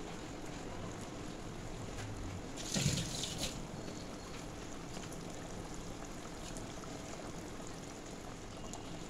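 Yogurt fish gravy simmering in a pan, with a faint steady bubbling. About three seconds in there is a brief wet splash as pieces of katla fish slide into the gravy.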